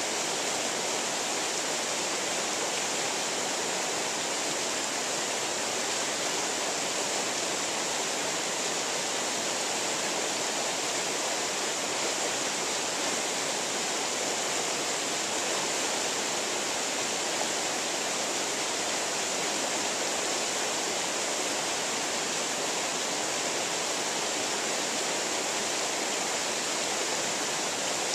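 Shallow creek rushing over rocks: a steady, even rush of flowing water.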